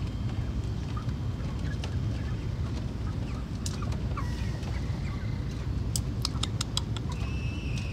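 Broiler chickens packed in plastic transport crates give short, faint peeps and chirps, one of them a falling peep near the end, over the steady low rumble of the transport truck. A quick run of sharp clicks comes about six seconds in.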